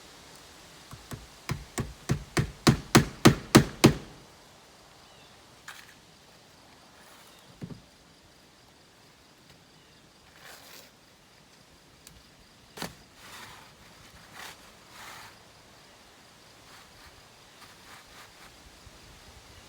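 A hammer driving a nail into shingles: about a dozen quick strikes, roughly four a second, getting louder toward the last blows, followed by a few isolated faint knocks.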